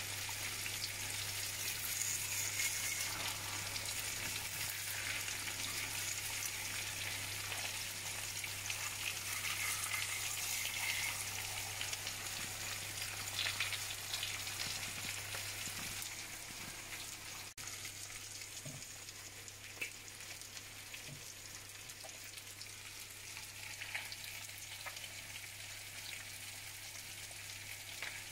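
Eggs frying in hot oil in a skillet: a steady crackling sizzle that eases off a little in the second half.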